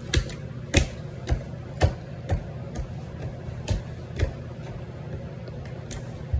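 Close-up chewing of food: a run of sharp, wet mouth clicks about two a second, thinning out after a few seconds, over a low steady hum.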